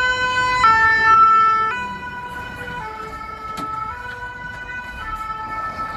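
Fire engine's two-tone siren, switching between a high and a low note about once a second, louder for the first two seconds and then quieter.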